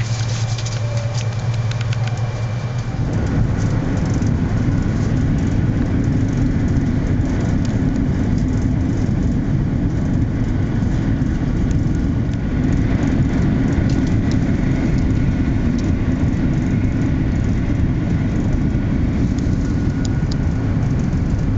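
Cabin running noise of a 200 Series Shinkansen electric train at speed: a steady, loud rumble of wheels on rail and rushing air. About three seconds in, a humming low tone gives way to a denser, heavier rumble that then holds steady.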